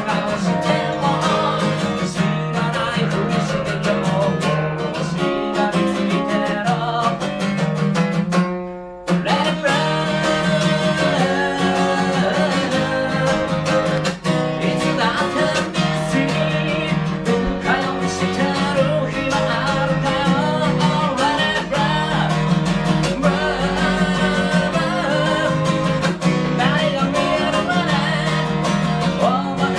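A man singing to his own strummed acoustic guitar, with a short break in the music about eight and a half seconds in.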